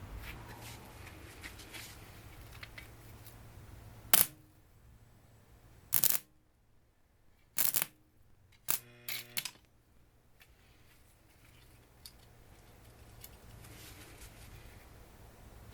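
100 V wire-feed welder striking several short arcs, each a loud crackling burst of under half a second, about four seconds in, at six, near eight and twice near nine, the last with a buzzing mains hum; the welder hums low in between.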